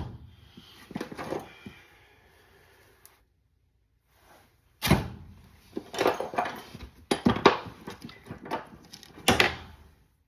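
Hand tools being pulled from a tool bag and set down: a knock and some handling noise at the start, then after a short quiet spell a run of sharp clatters and thunks.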